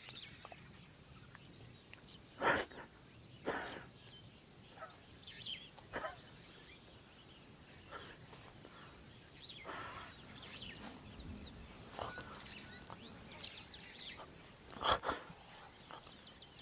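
Sick adolescent lion retching: a few short heaves, one about two and a half seconds in and the loudest near the end, over faint bird chirps. The sickness may come from eating rotten hippo.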